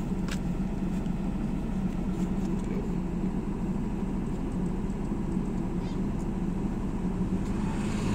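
An engine running steadily at idle: a low, even hum that holds the same speed throughout.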